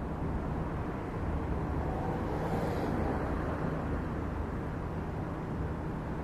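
A steady low engine rumble with a hum, and a short swell of rushing noise about two and a half seconds in.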